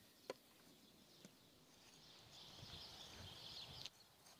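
Faint crunching hiss of snow being scraped by a gloved hand in a plastic tub, building about two seconds in and cutting off sharply near the end, with a few faint clicks before it.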